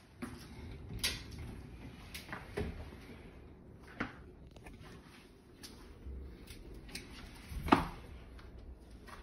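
A handful of knocks and clunks as mirrored closet doors are handled and opened, the loudest knock near the end.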